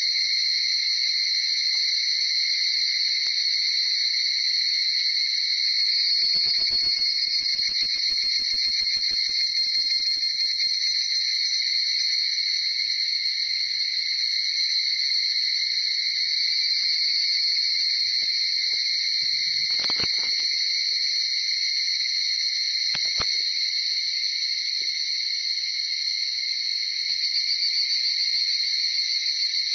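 Chorus of many higurashi cicadas (Tanna japonensis) calling together, their trills merging into a steady, high-pitched ringing.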